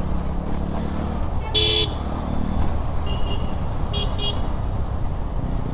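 Street traffic running with a steady low rumble, over which a vehicle horn blasts about one and a half seconds in, followed by short horn toots around three seconds and two quick beeps near four seconds.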